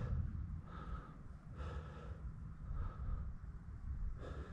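A cyclist breathing hard on a steep uphill climb, a breath about every second, over a low rumble.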